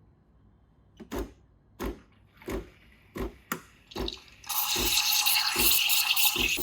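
Soft low thumps at an even pace, about one every 0.7 seconds. About four and a half seconds in, a tap is turned on and water runs steadily into a sink.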